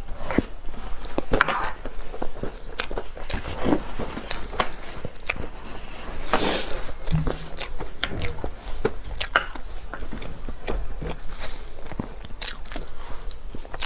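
Close-miked eating: a person biting into and chewing food, with frequent short, sharp clicks at an irregular pace.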